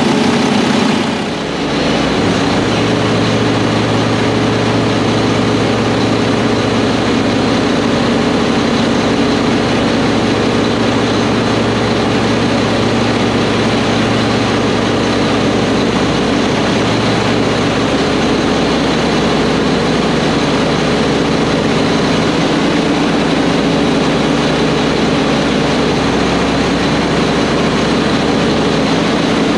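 Mack dump truck's turbocharged diesel engine idling steadily, freshly serviced with new filters and oil and its fuel system just primed, running smoothly.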